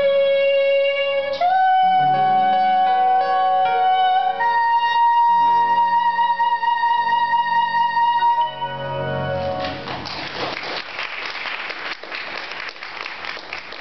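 A woman's solo voice holding a long final sung note that steps up in pitch twice, over sustained accompaniment chords. About two-thirds of the way through, the music gives way to audience applause.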